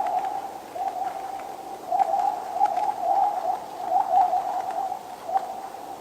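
Frozen lake ice singing: a wavering, whale-like tone that swells and fades every second or so, with scattered short high pings.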